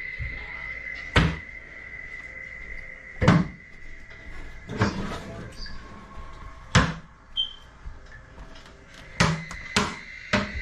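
About seven sharp, irregular knocks and clunks, one to two and a half seconds apart with a quick double near the end, over a faint steady high whine.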